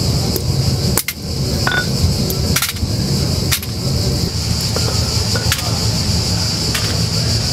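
Hammer breaking chunks of raw cotisso glass on concrete: several sharp strikes at uneven intervals, some followed by brief glassy clinks. Under them runs a steady background hiss and hum.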